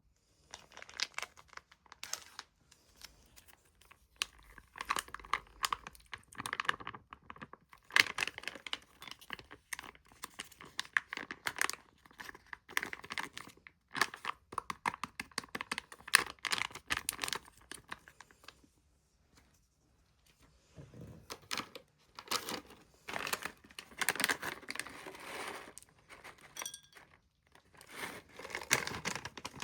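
Packaging being crinkled and torn by hand in bursts of dense crackling, with short pauses between handlings.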